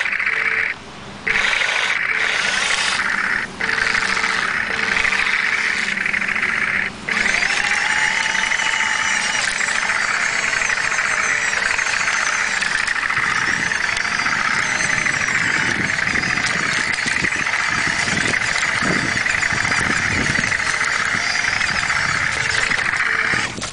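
Electric drive motors and gearboxes of a radio-controlled airsoft model tank whirring steadily as it drives, cutting out briefly a few times in the first seven seconds when it stops and moves off again.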